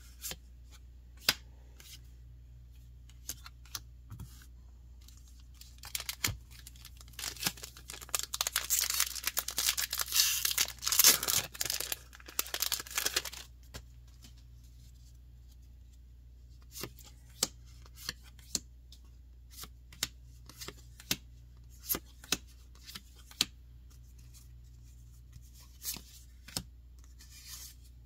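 A Magic: The Gathering draft booster pack's foil wrapper being torn and crinkled open for about seven seconds, starting about six seconds in. Scattered sharp clicks of cards being handled come before and after it.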